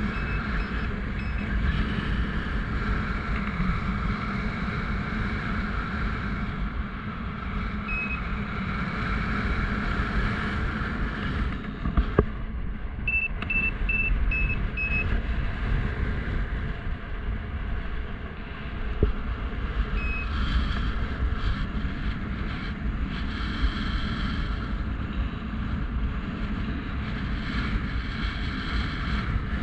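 Strong wind buffeting the microphone in paraglider flight, a steady low rumble, with a variometer's short high beeps now and then: a few at the start, one around a third of the way in, a quick run of four or five near the middle, and one more later, signalling the glider is in rising air.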